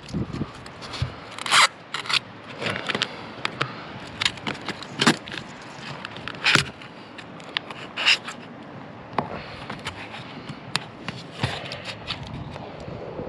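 Irregular scraping and sharp metallic clicks of hands-on work with standing seam metal roofing panels.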